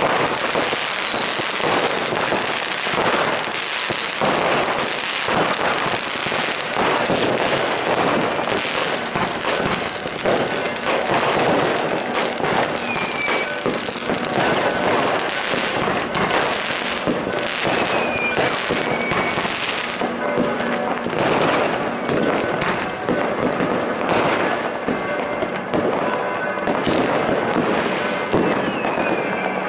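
Fireworks going off in a steady barrage of bangs, pops and crackling, with a few short falling whistles now and then.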